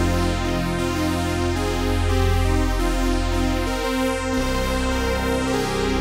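Arturia PolyBrute analog polyphonic synthesizer played with both hands: held chords over a strong low bass note, the harmony and bass changing about four seconds in.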